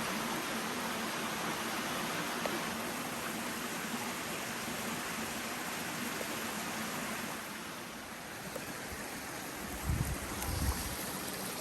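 Steady rush of a rainforest river flowing over rocks, easing slightly for a moment, with a few low thuds near the end.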